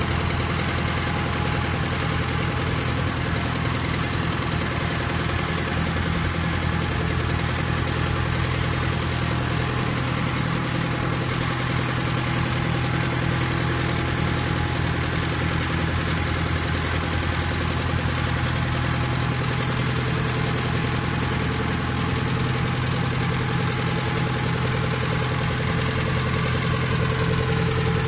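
Diesel engine of a mobile boat hoist (travel lift) running steadily as the hoist drives along with a boat slung beneath it.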